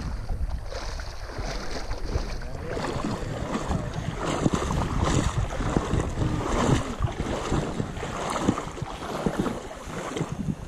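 Water sloshing and splashing irregularly around a person wading through a shallow river, with wind buffeting the microphone.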